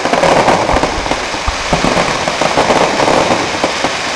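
Fireworks display: a dense, continuous crackle of many small rapid bursts, with a few deep booms of shells exploding in the first couple of seconds.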